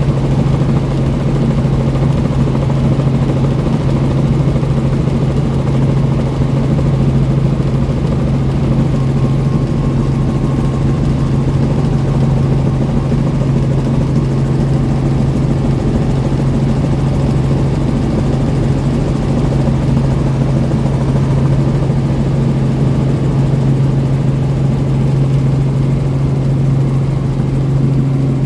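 Helicopter running in flight: a loud, steady drone with a strong constant low hum.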